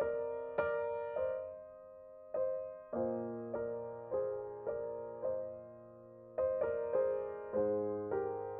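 Slow solo piano background music. Notes and chords are struck one after another, each ringing and fading, with a couple of held chords dying away between phrases.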